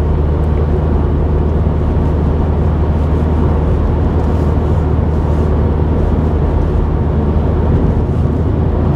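Car driving at a steady speed, heard from inside the cabin: a steady low engine drone with tyre and road noise.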